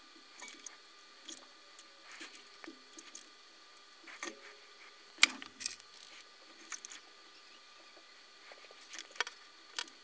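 Scattered small clicks and taps from handling a headphone jack and its fine wires at a soldering bench, the sharpest two a little past five seconds in, over a faint steady background hum.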